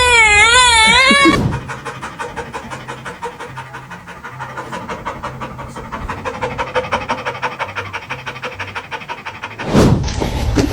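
A loud, wavering, warbling pitched sound for about the first second and a half, then rapid rhythmic panting at about five breaths a second, cut off by a loud burst near the end.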